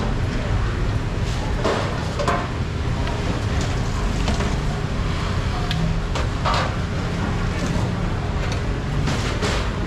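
Busy market-stall ambience: a steady low rumble with faint voices in the background, broken by a dozen or so short knocks and clatters of things being handled.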